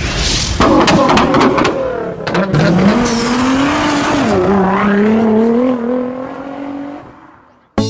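Car burnout sound effect: an engine revving over a hiss of tyre squeal, with a few sharp cracks about a second in. The engine note climbs about two and a half seconds in, dips briefly, holds, then fades out near the end.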